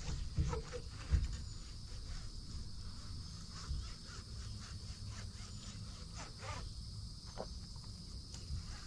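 Steady high-pitched drone of insects, like cicadas or crickets, with a few short chirps and light knocks scattered through it and a low rumble underneath.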